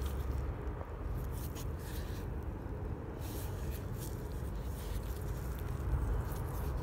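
Faint short clicks and rubbing of a gloved finger moving the EGR valve's shaft and lifting pin by hand, over a steady low background rumble.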